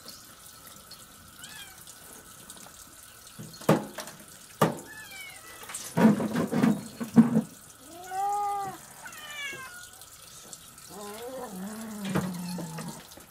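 Cats meowing for fish scraps, several rising-and-falling meows in the second half, over a tap trickling into a steel sink. The loudest sounds are knife strikes on a wooden cutting board as fish is cut up: two knocks about four seconds in, then a quick cluster of chops about six to seven seconds in.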